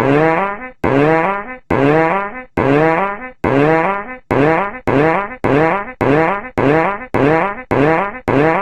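Fart sound effect played over and over: buzzy, pitched fart blasts that each start sharply and fade out. About five longer blasts of under a second each come first, then shorter ones follow at about two a second from around four seconds in.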